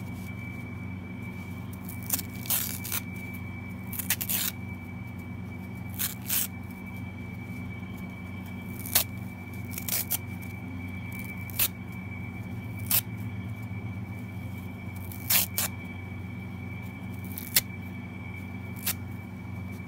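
Kitchen sponges, foam with a scouring-pad layer, being torn apart by hand: short, sharp rips every second or two at an irregular pace, over a steady low background hum with a faint high whine.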